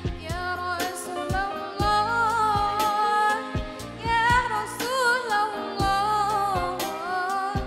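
A woman singing into a microphone, her voice amplified and moving through ornamented, wavering melodic lines, over backing music with drum hits about twice a second.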